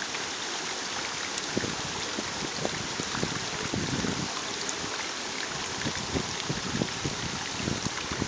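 A steady rushing hiss, with irregular low wind buffeting on the microphone.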